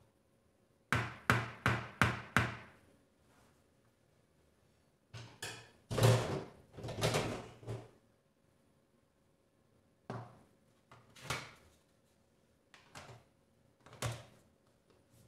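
Handling of a plastic food container of soft ice cream on a stone worktop, ending with its lid pressed on: a run of five quick knocks about a second in, a louder cluster of knocks around the middle, then a few scattered knocks and clicks near the end as the lid goes on.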